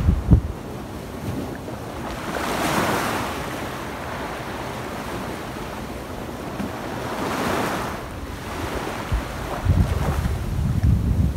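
Small waves washing up a sandy beach, swelling and falling back twice. Wind buffets the microphone with a low rumble at the start and again near the end.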